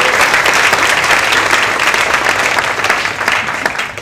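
Audience applauding: many hands clapping in a dense, steady patter that thins slightly near the end.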